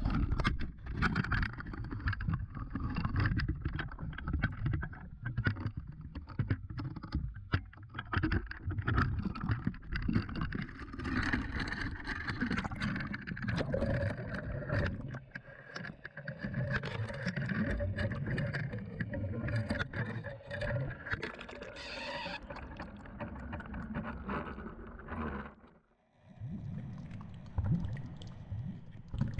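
Water sloshing and rushing around a GoPro in its waterproof housing as it rides a fishing rig down into the sea, with many small knocks and clicks against the housing. The sound cuts out briefly near the end, then resumes.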